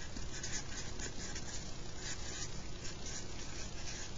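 Felt-tip marker scratching across paper in short, irregular strokes as a word is written by hand.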